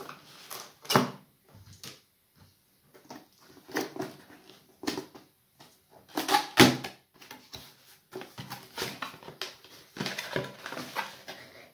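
A cardboard box being opened by hand: the outer sleeve slid off and the flaps folded back, giving irregular paperboard scrapes and rustles, with two sharper, louder scrapes about a second in and just past halfway.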